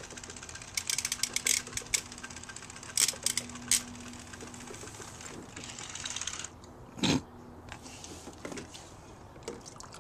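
Plastic toys clicking, tapping and clattering against each other and the hard plastic kiddie pool as they are handled. There are quick runs of clicks in the first few seconds and a louder knock about seven seconds in.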